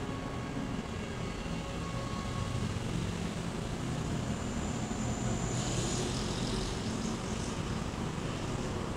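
Steady low background rumble with no speech, with a short burst of higher hiss about six seconds in.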